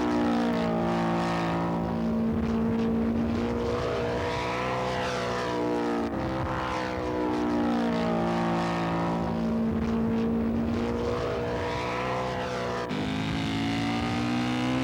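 Radio-control model aircraft engines running in flight, their pitch swooping up and down as the planes pass. The sound changes abruptly twice, as if separate passes are cut together.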